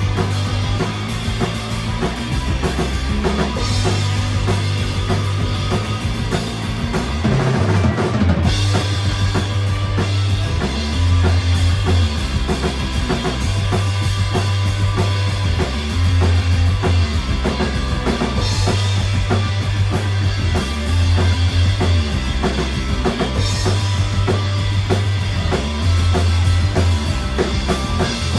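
A live rock band plays loudly on electric guitar, bass guitar and drum kit, with the drums and a pulsing bass line to the fore.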